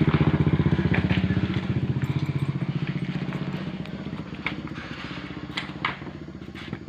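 Motorcycle engine running with an even, rapid pulse, about ten beats a second, fading away after about two and a half seconds.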